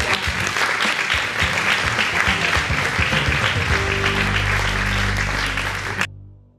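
Audience applauding. About four seconds in, low sustained music chords come in under the clapping; the applause cuts off suddenly about six seconds in, leaving the music to fade.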